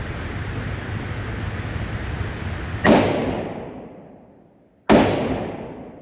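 Two gunshots from a firearm fired without its optic at a 15-yard target, about two seconds apart. Each shot rings out and fades over about a second and a half.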